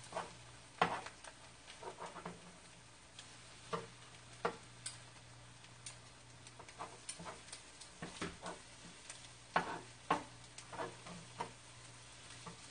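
A metal spoon scraping and tapping irregularly against the bowl and pan as crab-stick, vegetable and egg batter is spooned into a frying pan, with faint sizzling of the batter frying underneath.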